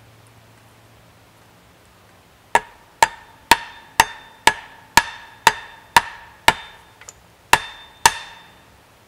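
A wooden stake being pounded into the ground with the back of an axe: about eleven sharp, evenly spaced blows, two a second, starting about two and a half seconds in, each with a short ring.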